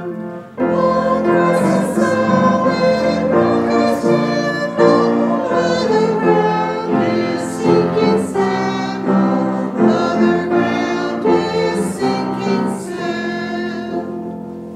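Choir singing with sustained chords, the music dying away near the end.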